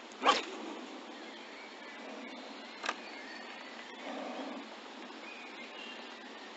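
Two sharp knocks of handling on a small action camera, the first about a third of a second in and much the louder, a smaller click just before three seconds, over a steady outdoor hiss.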